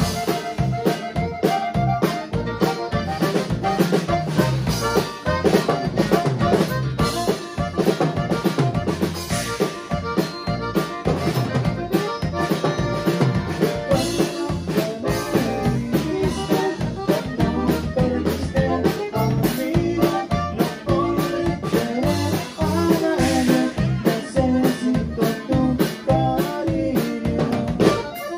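Live conjunto band playing an instrumental passage: a button accordion carries the tune over electric bass, guitar and a drum kit keeping a steady beat.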